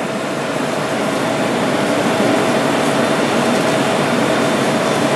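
A steady rushing noise with a constant hum, growing slightly louder.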